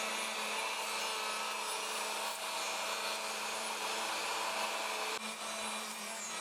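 Handheld electric woodworking power tool running steadily, a continuous motor whir with an even hiss, dipping slightly about five seconds in.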